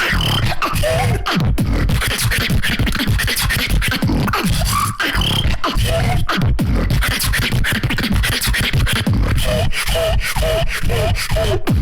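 Solo beatboxer performing a fast drum-and-bass routine: dense, driving vocal kick and bass hits with short sliding, pitch-gliding sounds over them. It stops abruptly at the end.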